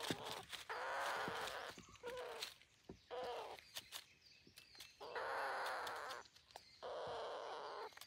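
Parakeets giving a series of harsh, rasping calls, about five in all, the longest lasting about a second, with short gaps between them.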